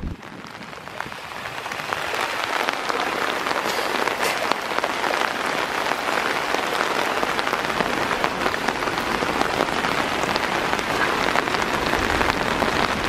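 Steady rain pattering close to the microphone, a dense hiss full of small drop ticks that builds up over the first two seconds and then holds steady.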